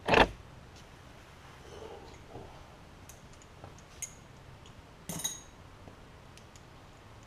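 A single sharp knock, then a few light metallic clicks and clinks of hand tools and metal parts handled around a small engine, the knock much the loudest.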